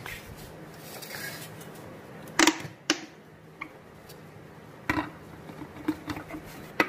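Stainless steel mixer-grinder jar being handled and set onto its plastic motor base before grinding: a few sharp clunks and clicks, the loudest about two and a half seconds in, with more knocks near the end as the jar seats. The grinder motor is not yet running.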